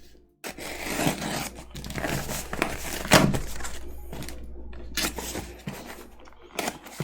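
Packing tape tearing and packaging rustling as a taped shipping box is opened, with irregular scrapes and crinkles and a sharper rip about three seconds in.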